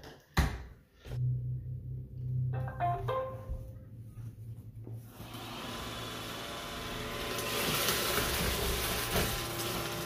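iRobot Roomba i7 robot vacuum, its side brush removed, starting a spot clean. It opens with a sharp knock as it is handled, then a low hum and a short rising chime. About five seconds in, the suction motor and brush roll spin up into a steady hiss.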